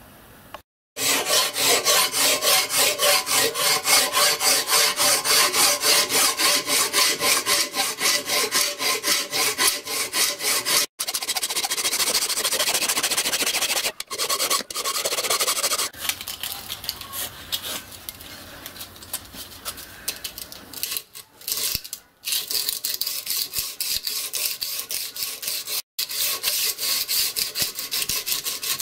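Flat hand file rasping along the edge of a metal strip clamped in a bench vice, in quick repeated strokes a few times a second. The filing stops abruptly for a moment a few times.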